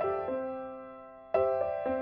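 Background music: soft piano notes struck one after another, each ringing and fading, with a new chord struck about a second and a half in.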